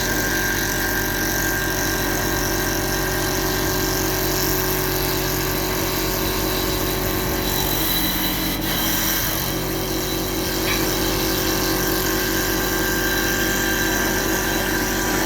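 CNC wood lathe running steadily, a machine hum with several constant pitches over the noise of cutting wood.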